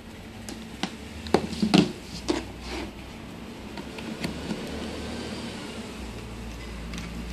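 Clicks and knocks from handling a multimeter and its test probes, a cluster of sharp ones between one and three seconds in, over a low steady hum.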